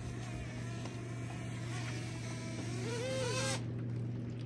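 A boat's outboard motor idling with a steady low hum. Faint voices come in about three seconds in.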